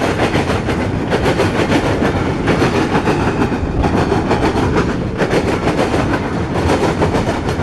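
CSX freight train's cars rolling past close by, a loud steady rumble with a continuous run of wheel clacks over the rail joints.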